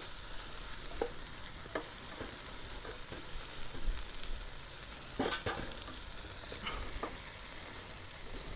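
Tailor fillets and sliced mushrooms sizzling in butter in a non-stick frying pan, with a plastic spatula scraping and tapping against the pan now and then.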